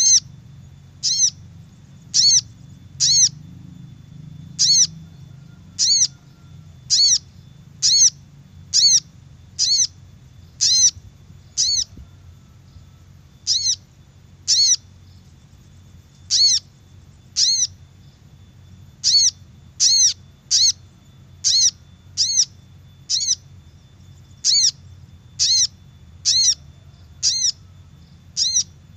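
Recorded lure call of a sogok ontong sunbird: a short, sharp arched note repeated about once a second, with two brief pauses, over a steady low hum.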